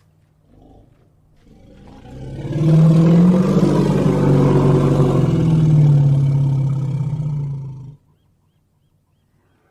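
A large animal's single long, low call that swells up over about a second and holds for about six seconds before cutting off.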